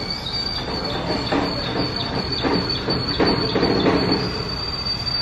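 A steady high-pitched machine whine over a hissing rush that swells a few times, from shop machinery running.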